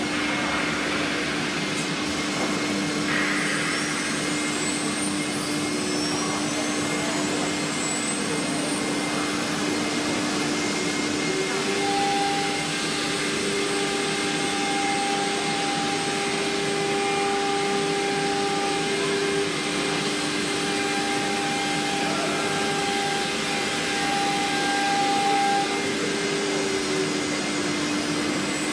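CNC router spindle running steadily while routing an MDF door panel, over the rush of the dust extraction drawn through its hood. A higher whine comes and goes from about twelve seconds in until near the end.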